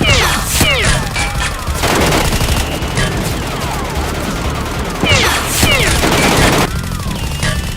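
Rapid gunfire sound effects for a toy-gun battle: dense bursts of shots laced with many short falling whistles, like ricochets or zaps, over a low pulsing beat. The heaviest bursts come at the start and again about five seconds in.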